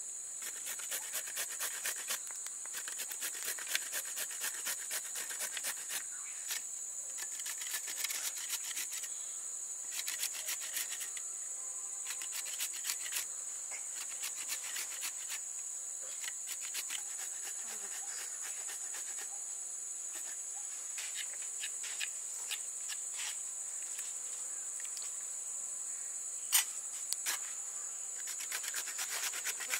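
Purple sweet potato scraped against a metal box grater in repeated rasping strokes, over a steady high-pitched chorus of crickets.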